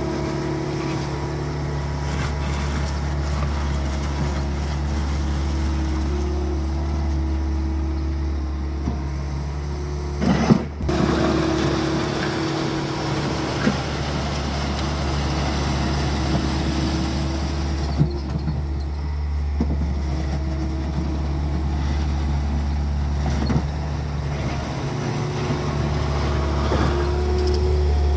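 Bobcat compact track loader's diesel engine running steadily as the machine grades loose gravel with its bucket, with a few sharp knocks, the loudest about ten seconds in.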